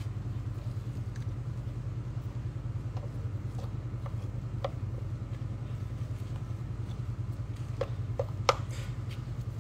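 A steady low motor hum, like an engine running, throughout. Over it come a few light clicks and scrapes of a metal spoon scooping wet dog food out of a tin can into a plastic bowl, sharpest in a quick run of three clicks near the end.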